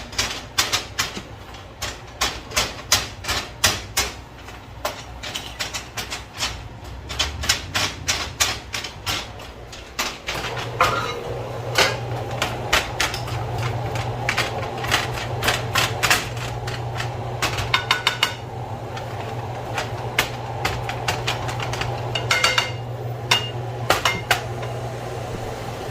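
A utensil knocking and scraping in a skillet in rapid, irregular strokes, chopping up browning ground beef and sausage. About ten seconds in, a steady low hum with a hiss starts and continues under the knocks.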